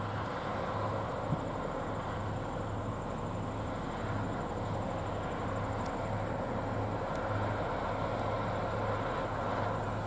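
New Holland CR9040 combine harvesting soybeans and unloading into a grain cart, with the New Holland T7 tractor pulling alongside, making a steady, even machinery drone.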